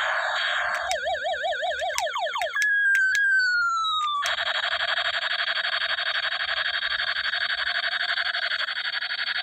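Electronic sound effects from a battery-powered toy space gun. A steady buzzing tone gives way about a second in to a fast, siren-like warble. Around three seconds in comes a falling whistle-like tone, and from about four seconds a steady buzzing drone.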